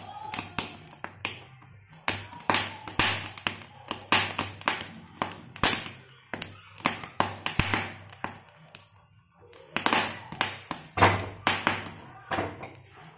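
Corn cobs roasting directly on a gas stove burner flame, giving sharp irregular crackles and taps, several a second, with a brief lull about nine seconds in.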